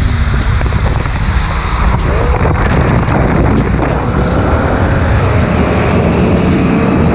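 BMW M3 coupe's V8 engine at full throttle, its note rising steadily through the middle as the car accelerates, over a loud rush of wind and tyre spray on a wet road.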